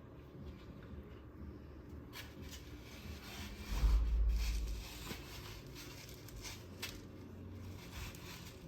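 Quiet kitchen handling noises from food preparation: light rustles and small clicks, with a low dull thump about four seconds in.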